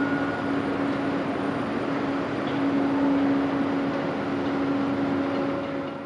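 Boeing 777-200 airliner's twin jet engines climbing out after takeoff: a steady rushing jet noise with a low steady hum underneath, fading near the end.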